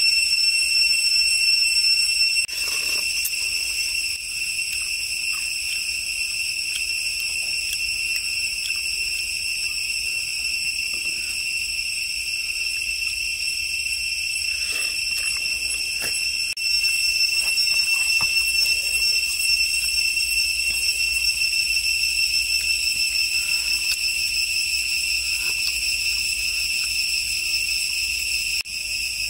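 Steady high-pitched drone of insects, holding one tone with overtones above it and growing a little louder about halfway through. A few faint clicks and taps from handling sound underneath.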